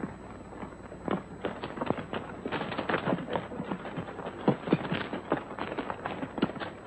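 Hoofbeats of several horses ridden over rocky ground: a dense, irregular clatter of hooves that grows louder about a second in.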